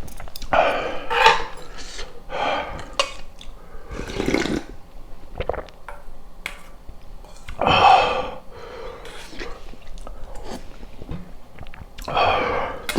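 Close-miked eating of jjamppong rice soup and sweet and sour pork: chewing and mouth sounds, with about five louder mouthfuls a few seconds apart and small clicks of utensils in between.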